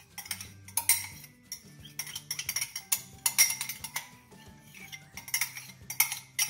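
Metal spoon scraping yogurt out of a small plastic cup and knocking against the cup and a stainless-steel bowl: a quick, irregular run of clinks and scrapes.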